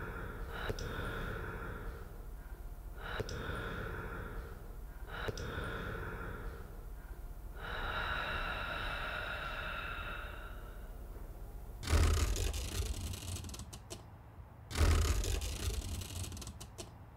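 A person's breathing, gasping breaths repeating about every two seconds over a low steady rumble. About twelve seconds in, loud ocean surf with wind on the microphone cuts in abruptly, drops out briefly and cuts back in.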